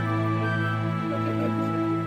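Background music of sustained, held notes.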